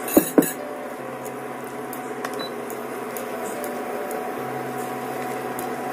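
A wooden spatula stirring raw beaten egg into masala in a non-stick frying pan, with two sharp knocks of the spatula against the pan near the start. A steady hum runs under it.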